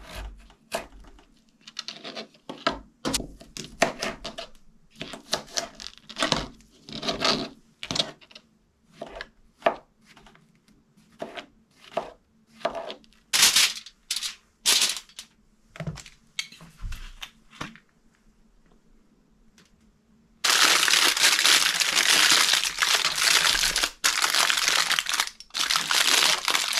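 A kitchen knife slicing potatoes against a plastic cutting board, a run of short sharp taps and scrapes, mixed with rustling of aluminium foil as the slices are laid on it. After a short pause about two-thirds through, loud continuous crinkling as the foil is folded and crushed into a packet.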